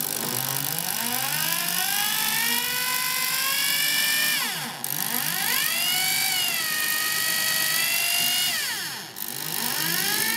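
Bosch GSB 18-2 RE impact drill running at low speed with an M5 cobalt (HSS-Co) bit, drilling out a hardened steel screw. The motor whine rises in pitch as the trigger is squeezed, dies away briefly about four and a half seconds in and again near nine seconds, and spins back up each time.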